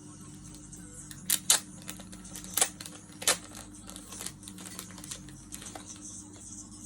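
Sharp clicks and light clinks from a bracelet and its box being handled, four louder ones in the first half and smaller ones after, over a faint steady hum.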